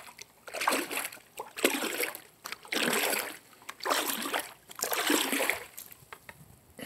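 Large seashell being waved faster close to the phone's microphone, giving a rhythmic swishing about once a second.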